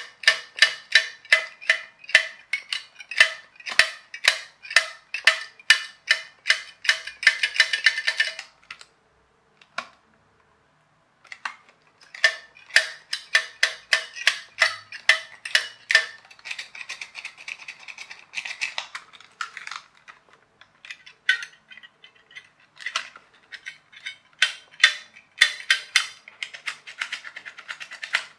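Small metal tool scraping the corroded battery contacts and springs in a Nikko RC Mini Cooper toy car's plastic battery compartment, cleaning off rust. Quick scratchy strokes about three to four a second, a short pause about nine seconds in, then more strokes, one longer scrape, and scattered ones.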